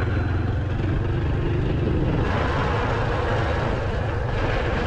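Motorcycle engine running steadily while riding, with wind and road rush over a helmet-mounted GoPro microphone.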